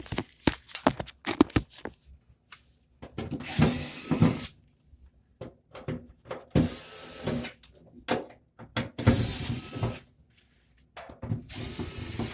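Cordless drill-driver running in four short bursts of about a second each, backing screws out of the washer's rear panel, with clicks and knocks of handling between the bursts.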